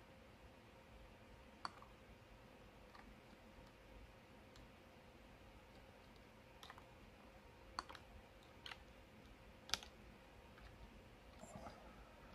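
Near silence with scattered faint clicks of a computer mouse and keyboard, a second or more apart, the sharpest just under ten seconds in and a short flurry near the end.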